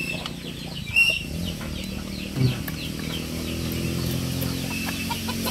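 Chickens clucking with short high calls, over a steady low hum.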